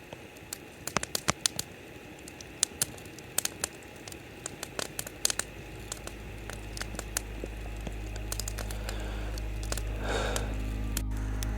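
Irregular sharp crackles and clicks, with background music fading in over the second half.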